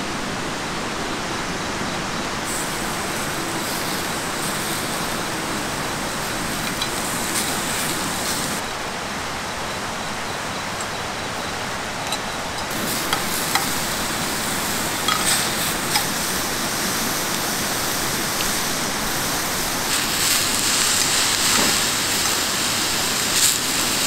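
Strips of rib meat sizzling on a grill pan over a portable butane stove: a steady frying hiss that swells for a few seconds at a time, with a few light clicks of tongs against the pan.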